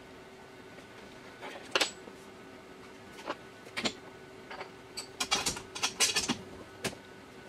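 Scattered sharp metallic clicks and clinks as a hand works over the aluminum part in the Tormach 440 mill's vise, clearing chips, most frequent about five to six seconds in, over a steady low hum.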